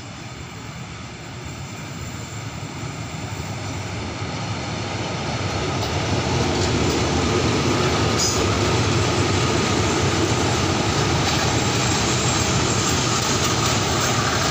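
Diesel multiple-unit railcar train coming in and running past, a rumble of wheels and engines that grows louder over the first half and then holds steady. A single sharp click is heard about eight seconds in.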